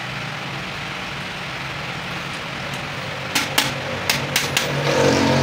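Steady low hum, then about three seconds in a quick run of five sharp metallic clicks from a hand tool working on the rim of a truck clutch disc's riveted friction lining.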